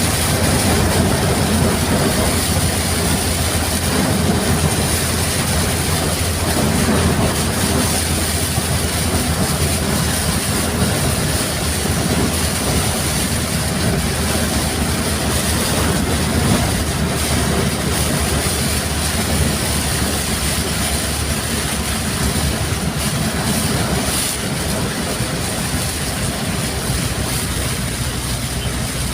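Heavy rain with strong wind: a loud, steady rush of noise over a low rumble, unbroken throughout.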